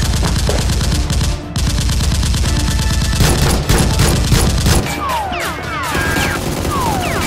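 Automatic gunfire: a rapid, steady burst for about five seconds, then several short falling whistles.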